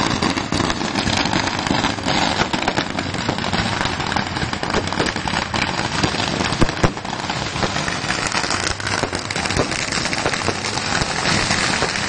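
Firecrackers in a burning Ravana effigy going off in a dense, continuous crackle of rapid small bangs, with a couple of louder bangs about two-thirds of the way through.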